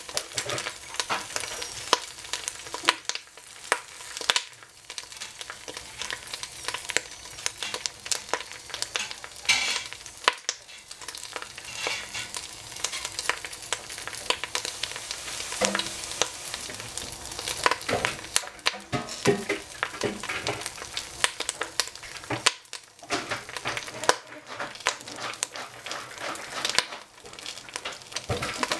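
Cabbage, fungi mushrooms and egg stir-frying in hot oil in a pan: a steady sizzle, with a utensil scraping and knocking against the pan many times as the food is stirred.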